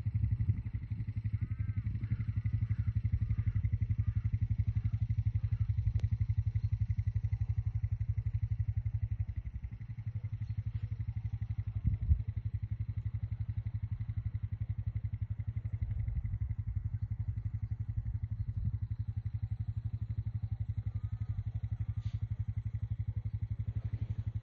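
An engine idling steadily close by, a low even pulsing that dips for a moment about ten seconds in. A brief knock comes about twelve seconds in.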